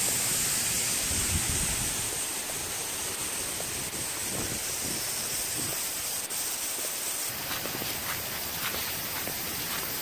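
Steady rush of flowing stream water with a constant high hiss over it.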